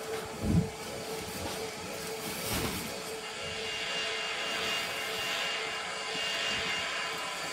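Steady whirring hum of the small battery fans that keep inflatable costumes blown up, with a higher whine joining about three seconds in. A thump about half a second in, and a softer one a couple of seconds later.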